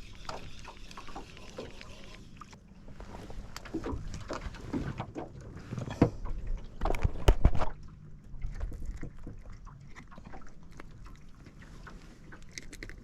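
Scattered clicks, knocks and thumps of handling in a small fishing boat, loudest in a cluster about six to eight seconds in.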